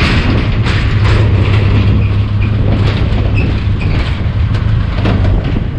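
Benelli TRK 502X's parallel-twin engine running steadily at low speed while crossing a bridge, with irregular knocks and rattles from the bridge deck under the tyres.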